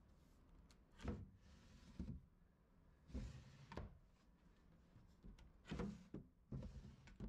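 Wooden dresser drawers being pulled open and pushed shut one after another, several short slides and knocks.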